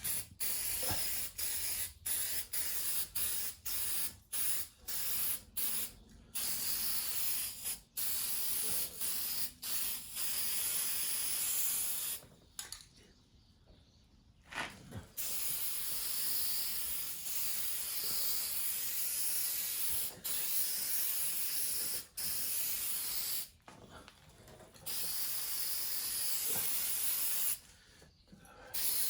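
Aerosol spray can spraying onto a transmission case: a quick run of short hisses, then longer held sprays of a few seconds each with brief pauses between them.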